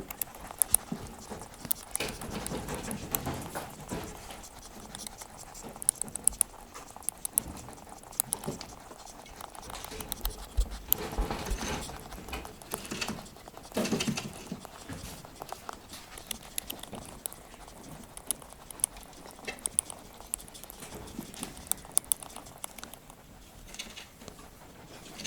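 A pet Soviet Chinchilla rabbit moving about: a light, irregular patter of small clicks and scuffs from its paws.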